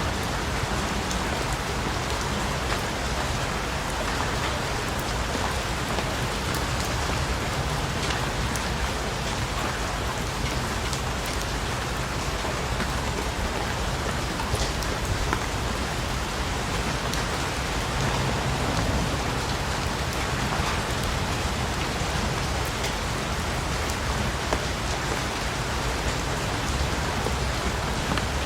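Steady rain falling on a surface, an even hiss with many individual drop ticks and a low rumble underneath.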